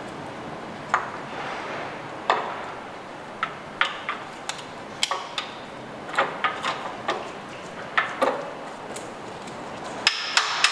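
Irregular metal clicks and clinks as the wet timing belt assembly of a Ford 1.8 TDCi (steel sprockets, belt and plastic guides) is slotted onto the crankshaft and pump shaft. Near the end a quick run of sharp taps starts as the crank sprocket is knocked home.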